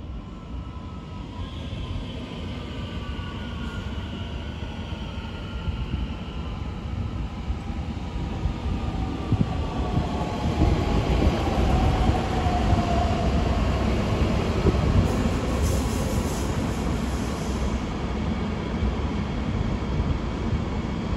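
A regional multiple-unit train running close past on the rails: a low rumble of wheels on track that grows louder toward the middle, with several whining tones that slowly fall in pitch.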